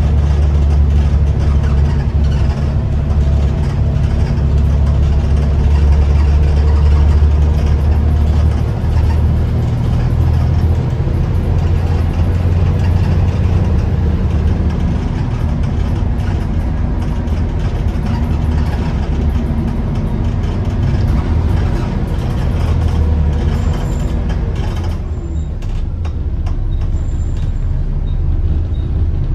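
Double-decker bus heard from on board while under way: the engine runs with a heavy low drone, strongest at first and easing about a third of the way in, over road and body noise. Near the end the higher road noise drops away sharply as the bus slows.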